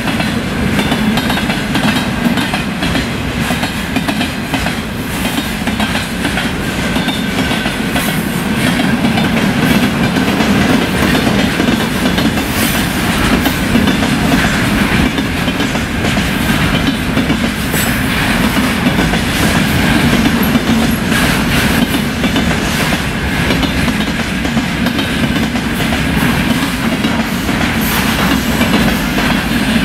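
Container wagons of a freight train rolling past at speed: a steady, loud noise of steel wheels on the rails, with wheels clacking over the rail joints.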